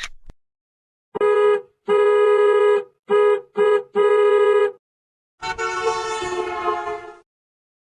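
A horn-like sound effect: a reedy tone blasts five times in an uneven short-and-long rhythm, then once more in a longer, rougher, wavering blast.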